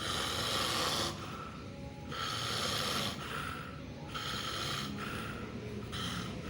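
Sleeping baby snoring: four noisy breaths, about one every two seconds. The uploader puts the snoring down to the baby sleeping on its side in the wrong position.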